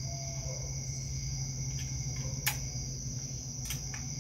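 Crickets chirping in a steady high trill, with a few sharp clicks from hand-tool work on the outboard's lower-unit housing bolts, the loudest about two and a half seconds in.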